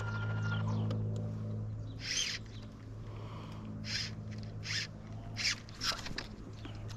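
MotorGuide electric trolling motor humming steadily as it holds the canoe in place on spot lock, a little louder over the first couple of seconds. Several short scratchy swishes come over it.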